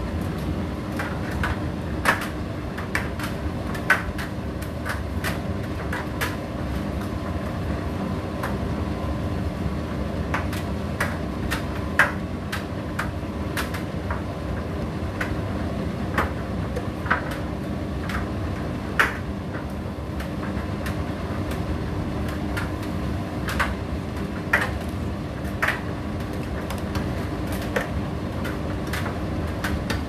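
Indesit IDC8T3 condenser tumble dryer running: a steady motor and drum hum, with irregular sharp clicks and knocks from the clothes tumbling in the turning drum.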